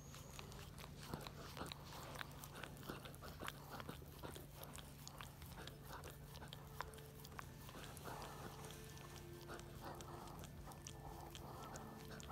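Faint, irregular small clicks and crackles from right up against a dog, over a steady low hum.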